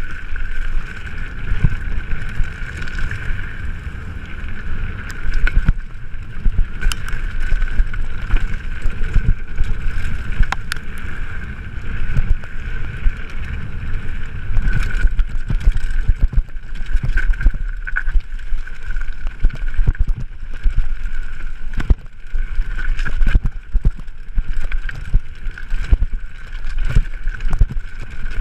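Wind buffeting the action-camera microphone and tyre rumble from a mountain bike descending a rough dirt and gravel trail at speed, with frequent sharp clatters and knocks as the bike hits bumps. A steady high buzz sits under the noise throughout.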